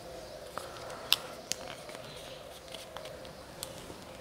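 Quiet room background with a steady faint hum and a few scattered sharp clicks, the loudest about a second in.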